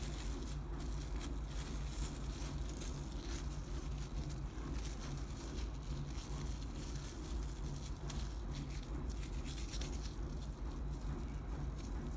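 Plastic cling film crinkling in short, irregular crackles as it is peeled off a cookie-dough log, over a steady low hum.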